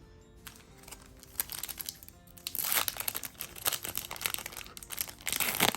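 A foil trading-card booster pack crinkling and tearing as it is opened by hand, in a run of irregular rustles and crackles that are loudest near the end, over quiet background music.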